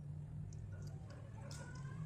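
Close-miked chewing: a soft, muffled low rumble with a few small clicks.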